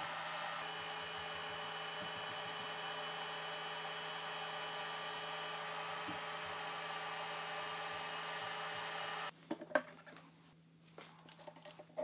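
Anycubic Photon Mono X resin 3D printer running with a steady whirr made of several held tones. The whirr cuts off suddenly about nine seconds in. A few light clicks follow as the build plate is handled.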